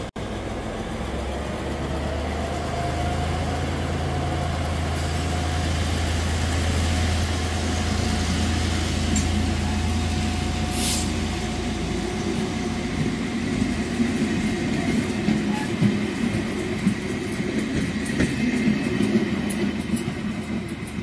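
Diesel-hauled passenger train running past at close range. A low steady engine drone fades out about halfway through, there is a short hiss, and then the coaches' wheels rumble and click over the rails as they go by.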